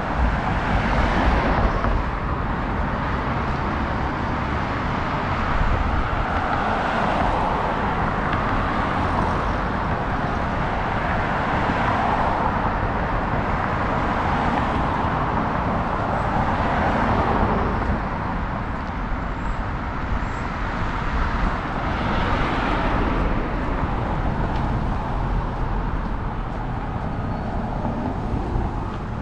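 Road traffic on a busy city avenue: cars passing one after another in a continuous wash of tyre and engine noise, each swelling and fading as it goes by.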